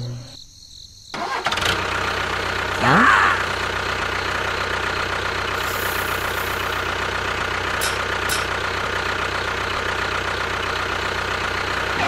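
Tractor engine starting about a second in and then running steadily, a sound effect laid over a model tractor. About three seconds in, a short sound rises in pitch.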